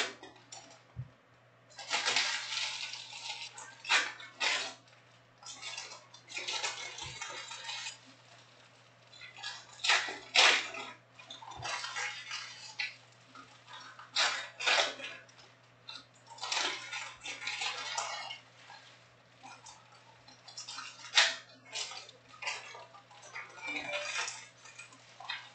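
Trading cards being handled and sorted into stacks on a table. Cards slide and rustle against each other in irregular swipes, with sharp taps as the piles are set down and squared up.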